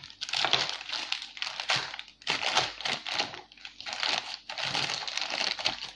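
Plastic courier mailer bag crinkling and rustling as it is handled and cut open with scissors, in an irregular run of crackles and snips.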